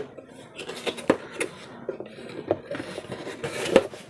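A cardboard box holding a set of glass tumblers being handled and opened: scattered light knocks and rubbing, with a sharper knock near the end.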